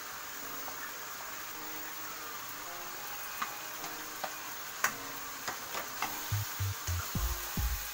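Food sizzling steadily in a nonstick wok as chopped tomato and shredded vegetables are tipped in from a bowl, with a few sharp clicks around the middle. In the last couple of seconds a spatula stirs through the wok with quick, repeated knocks.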